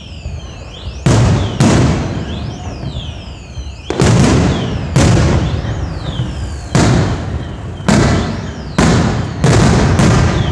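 Aerial firework shells bursting overhead: about nine loud booms in irregular volleys, each sharp at the start and then rumbling away, with high sweeping whistles underneath.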